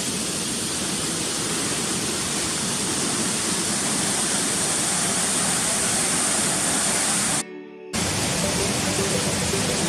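Steady rushing roar of a waterfall, cut off sharply for about half a second near the end before resuming.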